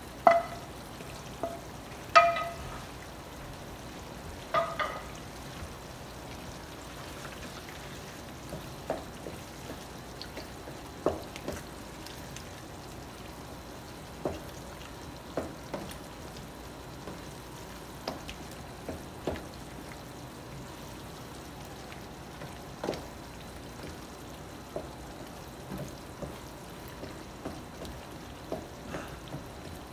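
Pasta sauce sizzling steadily in a pot while meat is stirred into it, a spoon clanking against the pot with three loud ringing clanks in the first five seconds, then lighter knocks and scrapes every second or two.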